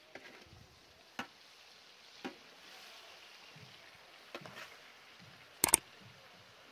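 Scattered light knocks and clicks, a few seconds apart, with a louder double knock near the end.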